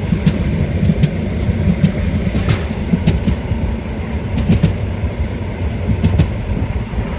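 Railway wagons' wheels knocking over rail joints: a steady low rumble of a train running by, with sharp, irregular clicks from the joints.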